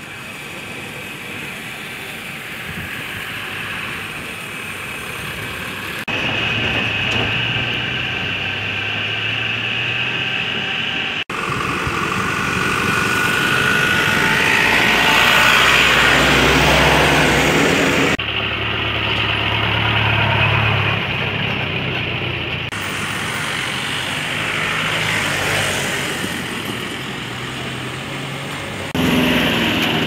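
Road traffic: car and truck engines running and passing close by, swelling and fading, with the sound changing abruptly several times.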